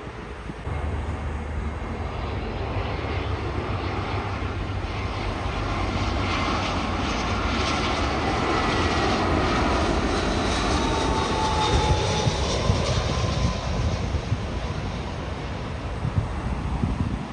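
Jet airliner engines passing: a rumble that builds over several seconds and peaks about two-thirds of the way through, with a whine sliding down in pitch, then begins to fade.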